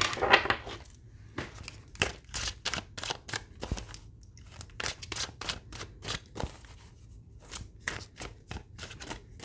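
Tarot deck being shuffled by hand: an uneven run of quick card clicks and slaps.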